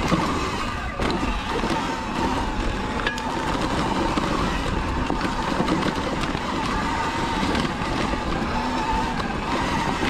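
Sur-Ron electric dirt bike ridden over a rocky dirt trail: a faint steady whine from the electric motor and belt drive over the noise of tyres, suspension and wind, with a few sharp clicks. The clicks are typical of the stock primary belt starting to skip teeth as it wears toward stripping.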